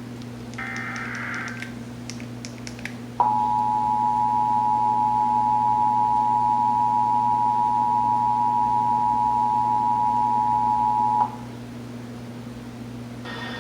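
Emergency Alert System broadcast signalling: the last one-second burst of the warbling digital SAME header, then, about two seconds later, the EAS attention signal, a steady two-tone 853 and 960 Hz alarm held for about eight seconds that cuts off abruptly.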